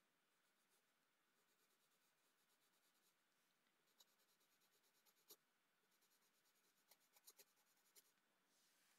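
Near silence, with a few faint ticks and scratches of a colourless blender pencil on drawing paper starting about four seconds in, several close together near the end.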